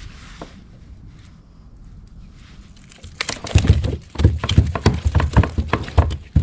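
A rainbow trout thrashing in a landing net against a plastic kayak hull: a fast, irregular run of loud slaps and knocks starting about three seconds in, after a low rumble.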